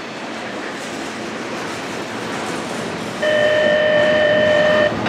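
Freight train of covered hopper cars rolling past, a steady noise of wheels on rail. About three seconds in, a loud steady tone sounds for a second and a half, then cuts off abruptly.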